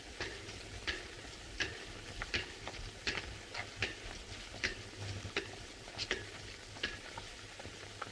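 A child's ball bouncing on a stone pavement, a sharp slap about every three-quarters of a second, over a steady faint hiss.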